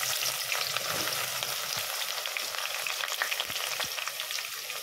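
Thinly sliced onions dropped into hot oil in a metal pot, sizzling with many small crackles as they begin to fry; the sizzle eases slightly toward the end.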